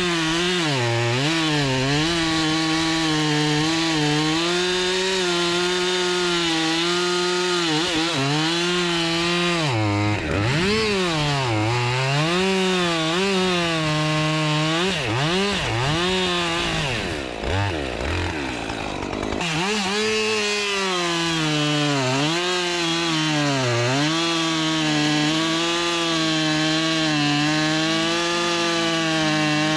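Two-stroke chainsaw running at full throttle while cutting firewood. Its engine pitch dips again and again as it loads down in the cut and picks back up, with a longer, deeper sag a little past halfway.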